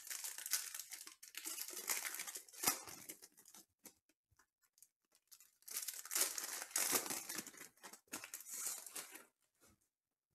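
Crinkly plastic packaging being handled and torn by hand: two spells of crackling and rustling with a short pause between them, then it stops about a second before the end.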